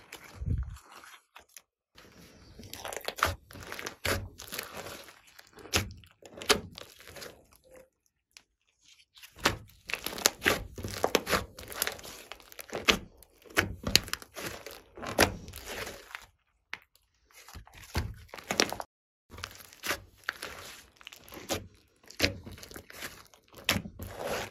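Slime being squished and kneaded by hand: dense, irregular crackles and pops in bouts of a few seconds, broken by short pauses.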